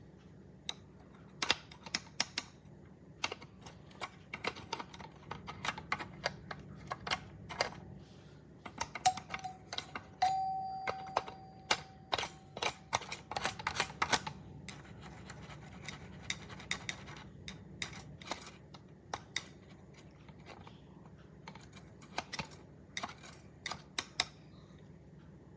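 Irregular sharp clicks and taps throughout, with one clear ringing tone that starts sharply about ten seconds in and dies away over a couple of seconds.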